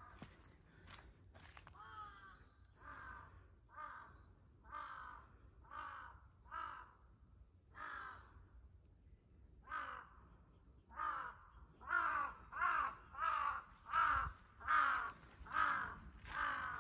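A crow cawing over and over, about twenty calls in a row: spaced out at first, then coming quicker and louder in the second half.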